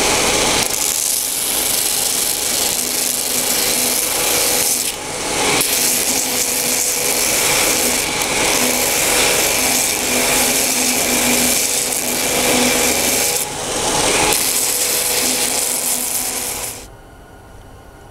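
Steel axe blank being ground on a homemade 2x72 belt grinder: a loud, steady hiss of the abrasive belt against the metal as it takes the forge crust off the hammered axe. The grinding breaks off briefly about five seconds in and again around fourteen seconds, and stops shortly before the end.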